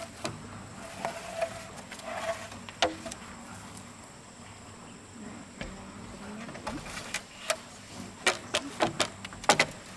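Irregular sharp knocks and taps of wood and tools being worked, with a quick cluster of them in the last two seconds. A faint buzz sounds in the first couple of seconds.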